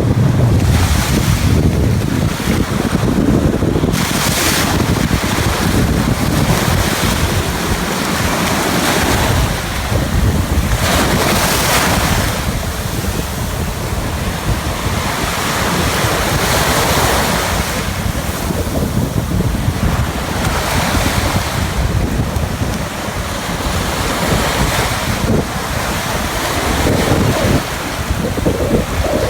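Ocean surf washing onto the beach, with swells every few seconds, under heavy wind buffeting the microphone with a low rumble.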